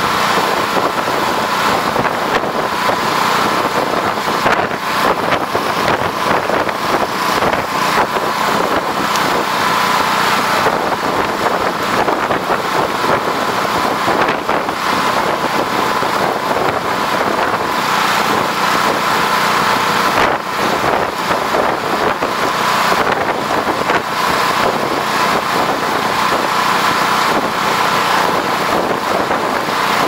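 Strong wind rushing over the microphone and through a fully burning house fire: a loud, steady rush with constant small flickers, over a steady engine hum.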